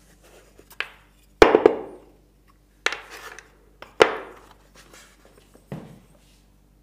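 Wooden knocks as timber pieces are set into a wooden frame and pressed down onto dowel-centre markers: about six sharp knocks, the loudest about a second and a half in and again at four seconds.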